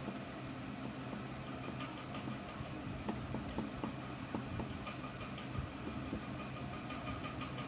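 Pen scratching on paper in short, irregular strokes while writing figures, over a steady low hum.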